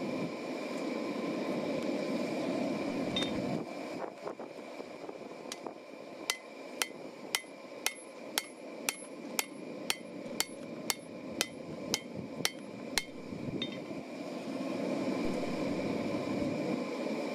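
Hand hammer striking hot steel on an anvil: about fifteen evenly spaced blows, roughly two a second, through the middle of the stretch, each with a short high ring. A steady rushing noise fills the start and the end, where there is no hammering.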